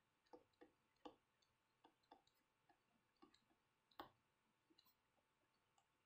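Near silence with faint, irregular clicks of a stylus tapping and writing on a tablet screen, the most distinct about a second in and about four seconds in.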